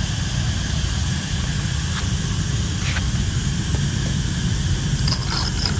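Wind buffeting the microphone: a steady, flickering low rumble, with a few faint clicks near the end.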